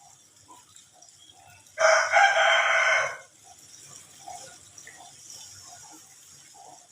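A rooster crowing once, a loud call of about a second and a half starting about two seconds in.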